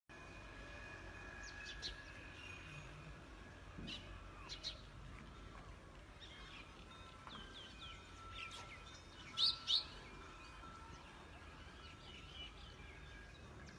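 Birds chirping and calling over a steady low background hum, with two sharp, loud chirps in quick succession about nine and a half seconds in.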